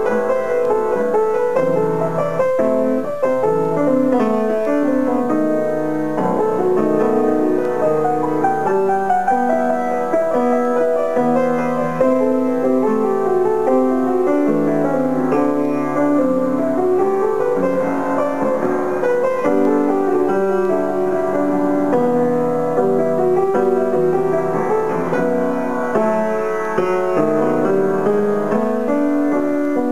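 Solo grand piano playing continuously: a melody over chords, with runs of notes rising and falling.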